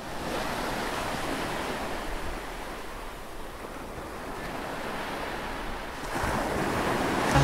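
A steady rushing noise with no distinct events, which grows a little louder about six seconds in.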